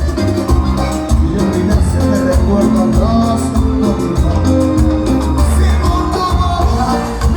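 Live Latin dance band playing, with a heavy bass beat and melody lines, loud through the venue's sound system.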